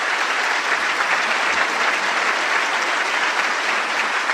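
Large seated audience applauding steadily, the sustained clapping of an ovation at the close of a speech, with people beginning to stand.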